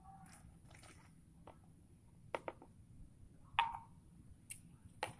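A hand handling a thin plastic drink bottle, giving faint crinkles and a handful of separate short clicks and taps, the loudest about three and a half seconds in.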